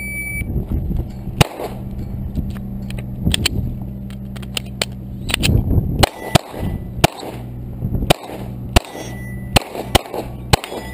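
Electronic shot timer's short beep, then a string of pistol shots at steel plates: one shot about a second and a half in, then a quick run of seven more from about six seconds on, with hits ringing on the steel.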